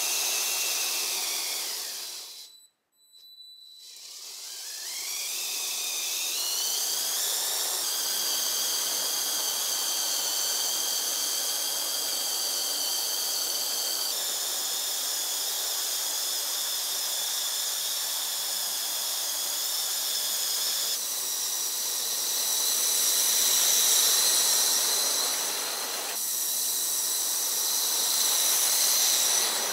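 Electric motors of a Lego Technic SD40-2 model locomotive's powered three-axle bogies whining high and steady as the train runs on plastic track. After a brief dropout a few seconds in, the whine rises in pitch as the train picks up speed, then holds steady.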